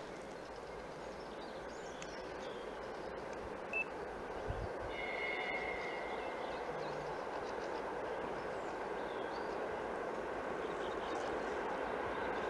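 Steady rumble of a distant ET2M electric multiple unit running along the line, slowly growing louder, with a short high tone about five seconds in.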